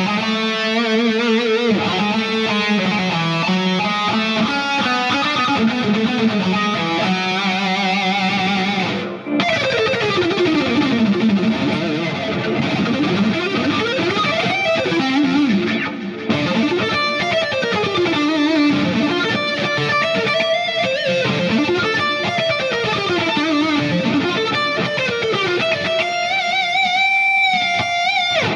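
Distorted electric lead guitar, an ESP EII Arrow played through a Line 6 POD HD Pro amp model, a Rocktron Velocity 300 power amp and an EVH 5150III 2x12 cab with Celestion G12H speakers, heard through a camera microphone. It plays fast melodic runs that sweep up and down, with held notes bent by vibrato at the start and near the end, and two short breaks about 9 and 16 seconds in.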